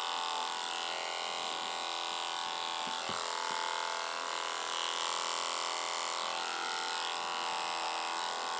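Electric dog-grooming clipper running with a steady buzz as it clips the hair on a miniature Schnauzer's ear, with a small knock about three seconds in.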